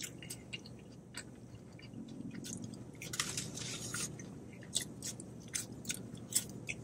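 Close-up mouth sounds of a person eating a burger and French fries: chewing with small wet clicks, and a louder, noisier stretch about three seconds in.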